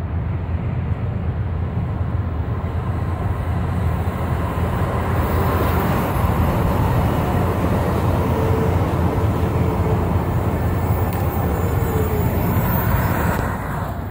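Los Angeles Metro Blue Line light-rail train passing close by: a steady rumble of wheels on rail that grows louder about five seconds in, with a faint motor whine that slides down in pitch near the end.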